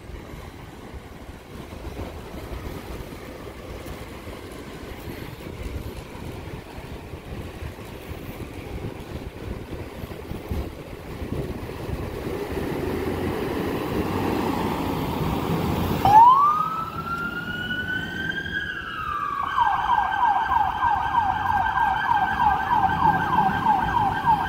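Street and engine noise grows as the FDNY Battalion 6 chief's vehicle pulls out. Then, well into the sound, its siren starts with a quick rising wail and holds. A few seconds later it switches to a fast yelp that carries on.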